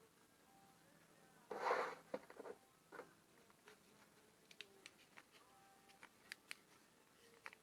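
Handling noise on a workbench: a short rustling scrape about a second and a half in, then scattered light clicks and taps of small objects being picked up and set down.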